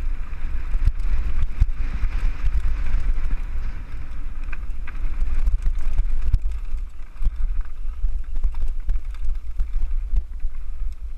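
Wind buffeting a helmet camera's microphone as a mountain bike rides fast down a rocky dirt trail, with the bike rattling and knocking over the bumps.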